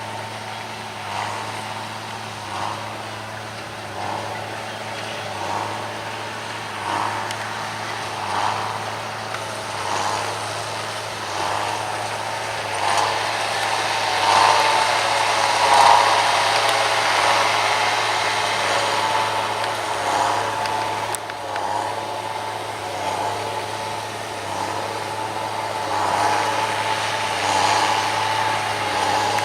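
Fendt 514C tractor pulling a Massey Ferguson 185 baler through straw, the engine running steadily under load, with a regular beat about every one and a half seconds. It grows louder in the middle and eases off again.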